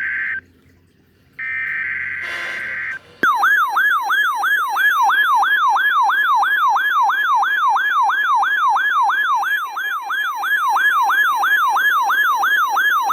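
Two short buzzy bursts of EAS/SAME digital header tones, each about a second and a half, start a NOAA Weather Radio test tornado warning. About three seconds in, a loud electronic warbling siren begins, sweeping about three times a second for some ten seconds; this is the weather-alert radio's alarm for the warning.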